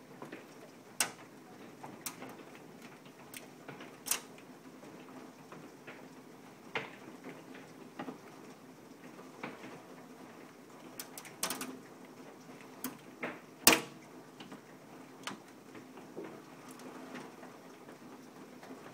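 Hailstones striking the window and house: scattered sharp taps at irregular intervals over a faint steady hiss, the loudest about two-thirds of the way in.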